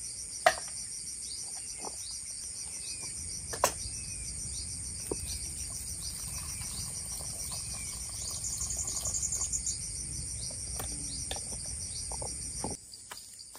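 Night chorus of crickets and other insects, a steady high-pitched chirring with a faster trill joining for a second or two in the middle. Two sharp clicks stand out, about half a second in and near four seconds, and the chorus drops away abruptly near the end.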